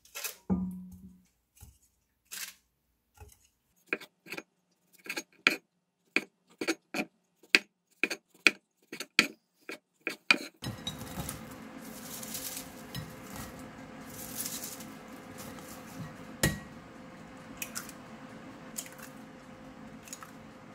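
Knife chopping on a wooden cutting board, a cleaver-style knife slicing through a sausage in sharp strikes about two a second. About ten seconds in the chopping stops and a few sharp clicks follow as eggs are cracked into a glass bowl.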